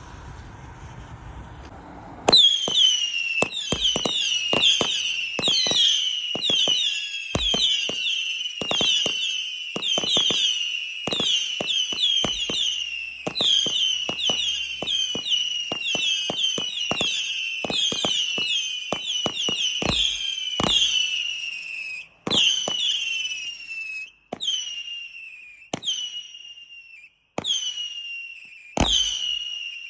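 Whistling firework battery firing: after about two seconds, a fast volley of shots, each a short high whistle falling in pitch with a crack, overlapping one another; after about twenty seconds the shots thin out to single whistles every second or two.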